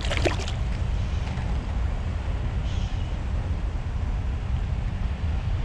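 Steady low rumble of wind on the microphone at sea, with a brief clatter about a quarter second in.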